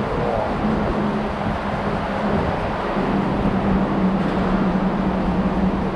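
Steady road-traffic noise from the bridge, with a low steady drone underneath.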